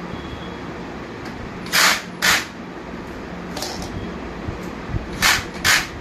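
Cordless power screwdriver run in four short bursts, two quick pairs about three seconds apart, over a steady low hum.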